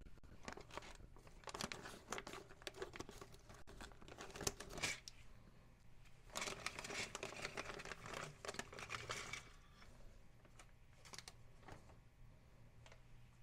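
Plastic zip-top bag crinkling as it is handled and opened and the plastic kit sprues are taken out, in two main spells of rustling followed by fainter rustles near the end.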